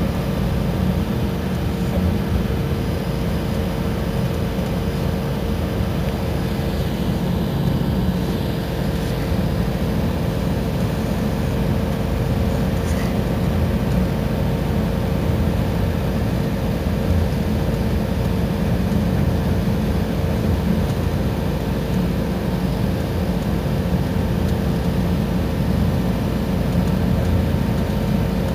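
Iveco Crossway city bus running steadily: an even low engine and road rumble with a constant hum above it.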